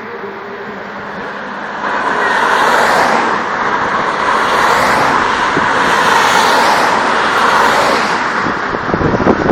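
Cars of a cycle-race convoy driving past at speed one after another, their tyre and engine noise swelling about two seconds in and rising again several times as each car goes by.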